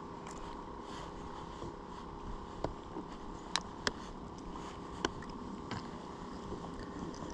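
Steady low hum of a fishing boat with a faint constant tone over it, broken by four or five sharp clicks and taps in the middle stretch.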